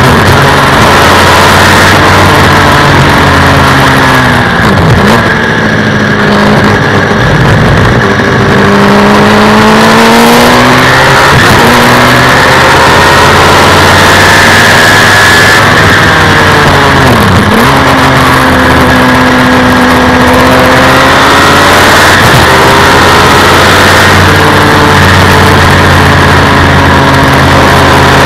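A Suzuki Hayabusa inline-four motorcycle engine powers a race car under way on track, with a steady low drone underneath. The engine note rises and falls several times as the revs change, dipping sharply about five, eleven and seventeen seconds in.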